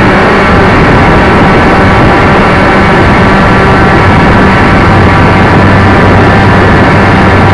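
A loud, steady motor drone very close to the microphone, overdriven, with an even hum that firms up about five seconds in.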